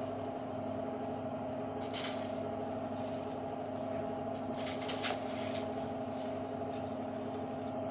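Steady low mechanical hum, with a few brief soft hissing swishes about two seconds in and again between four and five seconds in.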